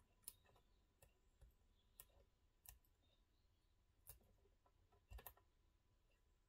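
Near silence, with about half a dozen faint, irregular clicks and taps from tweezers and fingertips handling a small paper die-cut and its foam mounting pads on the tabletop.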